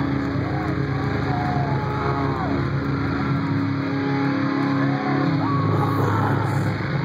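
Concert sound before the band starts playing: a steady low drone with no beat, with scattered short rising-and-falling whoops from the crowd.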